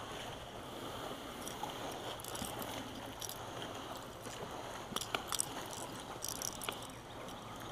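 Small sharp clicks and rattles of a popper lure's treble hooks being handled and worked free of a bass's mouth, in two clusters about two and a half and five to six and a half seconds in, over a faint steady hiss.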